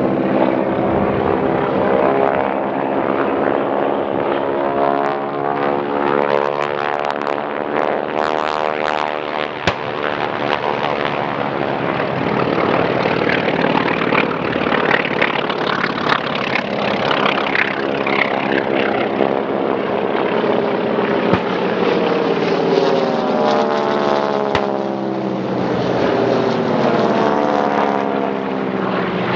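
Several radial-engine propeller warplanes flying low passes in turn, their engine notes overlapping and sliding down in pitch as each one goes by.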